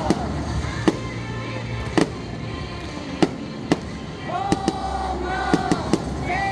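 Fireworks bursting overhead in a string of about eight sharp bangs at irregular intervals, over music with singing from the stadium that swells near the end.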